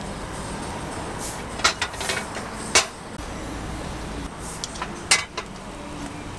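Cast-iron bungeoppang (fish-shaped bread) molds and metal tools being handled over the burner, giving sharp metallic clicks and clanks: a cluster about a second and a half in, one near three seconds and a pair around five seconds, over a steady background noise.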